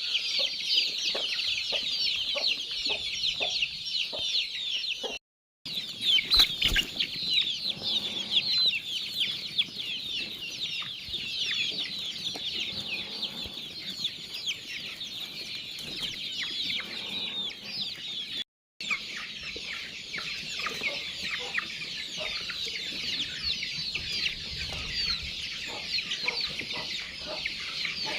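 A large flock of chicks peeping together in a dense, continuous high-pitched chorus of many overlapping short chirps. The sound cuts out completely twice for a split second.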